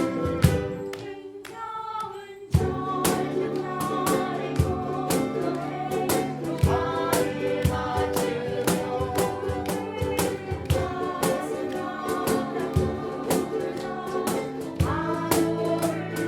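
Ukulele ensemble strumming a song in a steady rhythm under a sustained melody line. The playing thins out about a second in and comes back in full with a sharp strum at about two and a half seconds.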